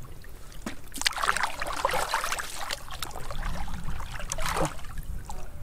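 Hands sloshing and splashing through shallow muddy water while groping in the mud for fish, with scattered drips and small splashes coming and going unevenly.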